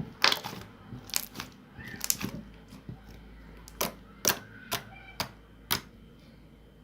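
Jiggle slime being pressed and poked, giving about ten sharp, irregular clicks and pops that stop about a second before the end.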